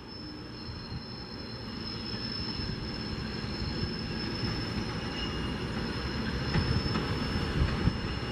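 SEPTA Broad Street Line subway train (Kawasaki B-IV cars) rolling slowly around a curve, its wheels giving a steady high-pitched squeal against the rails over a rumble that grows louder as it approaches, with a few wheel knocks near the end.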